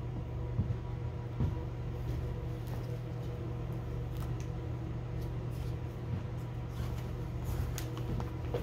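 A hardcover children's book handled and opened, its pages turned with a few soft taps and rustles, over a steady low hum.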